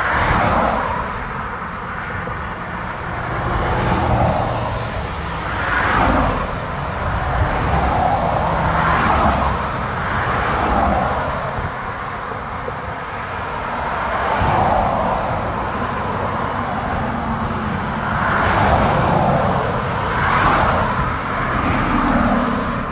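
Road traffic: cars passing one after another, the noise rising and falling in repeated swells every few seconds.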